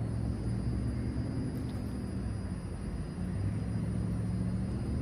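Steady low rumble of road traffic, cars' engine and tyre noise blending into a continuous hum.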